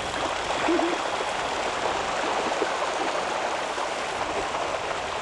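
A large flock of coots splashing and pattering across the water surface as they run and flap to take off, a dense continuous splashing that gets louder about a second in.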